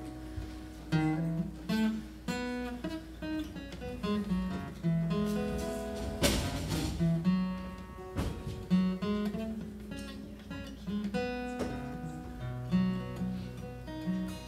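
Acoustic guitar played solo, picking single notes and a moving bass line with a few strummed chords between them.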